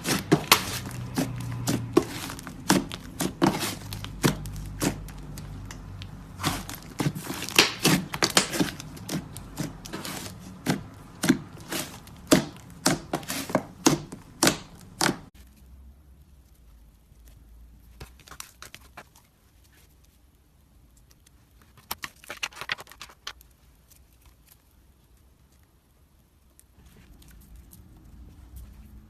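Slime mixed with clay being squeezed and kneaded by hand: a rapid run of sticky clicks and pops that thins out about halfway through to a few soft crackles.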